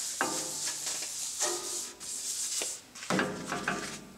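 Rag rubbing paste wax into a metal bandsaw table in circles, a swish roughly every second, some strokes with a pitched squeak.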